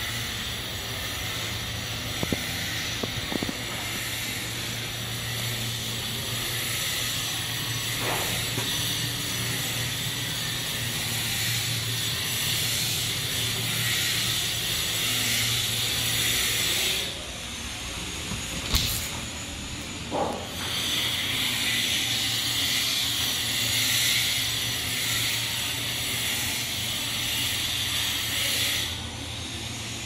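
Steady hiss with a low hum underneath. The hiss drops out for a few seconds a little past halfway and again near the end, and a few light clicks and knocks sound over it.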